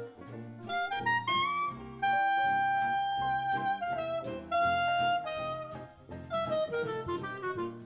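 Jazz music with a horn playing the melody over a bass line; the lead slides up about a second in, then holds a long note.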